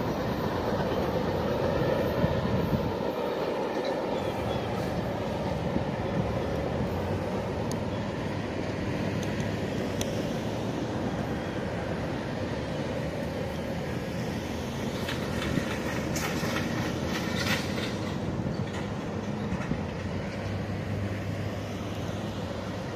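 A CSX freight train rolling along the line out of sight, a steady rumble and rail clatter that slowly fades. About two-thirds of the way in come a cluster of sharp clicks and brief squeaks.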